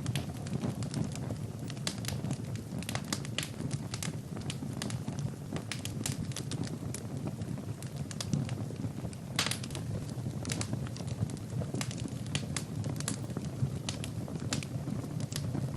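Wood fire burning in a fireplace: logs crackling and popping at irregular moments over a steady low rumble of flames. There is a louder burst of pops a little past the middle.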